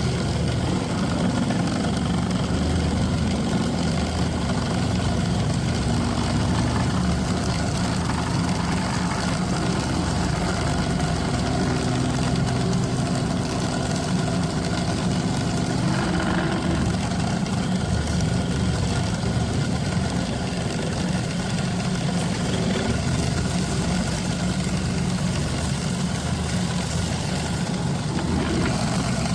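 Wood lathe motor running steadily, an even mechanical hum.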